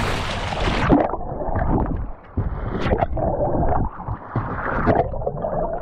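Water splashing and gurgling against a small boat's hull as a hooked hammerhead shark thrashes at the surface alongside, in uneven surges, muffled from about a second in.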